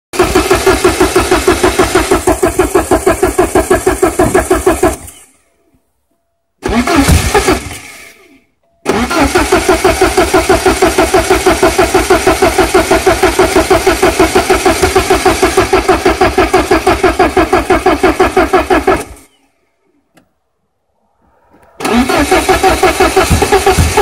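Porsche 944 four-cylinder engine being cranked hard by its starter after 20 years sitting, with an even rhythmic chug. The cranking comes in repeated bursts with short silent pauses between them: one of about five seconds, a short one around seven seconds in, a long one of about ten seconds, and a fresh one starting near the end.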